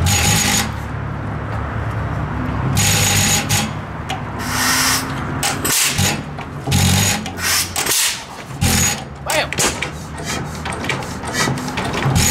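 1916 Galloway single-cylinder stationary gas engine, its flywheel hand-spun, catching and firing in separate exhaust bangs a second or more apart that come more often toward the end as it starts running.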